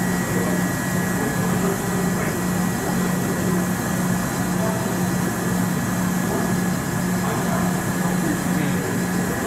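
Station platform PA announcement in Japanese of a train arriving at platform 1, heard faintly over steady station noise, with a low hum pulsing on and off at an even rate.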